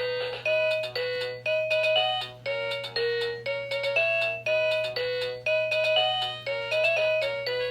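VTech apple-shaped baby toy playing an electronic melody: a run of bright, beeping notes, two or three a second, over a steady low hum.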